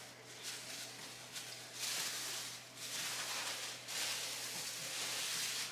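Plastic sheet from a wooden tortilla press rustling and crinkling as it is handled and a pressed tortilla is peeled off it, in several separate bursts in the second half.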